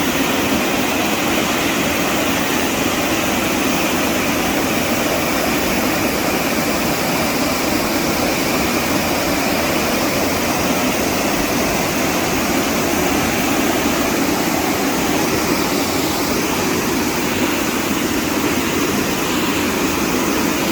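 Blackwater Falls' falling water making a loud, steady rush that does not change.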